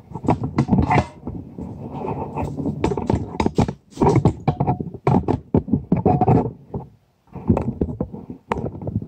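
Irregular bumps, rubbing and knocks from a phone camera being handled and repositioned close to the microphone, with clinks of a steel wrench on the starter's mounting bolts, broken by a few short pauses.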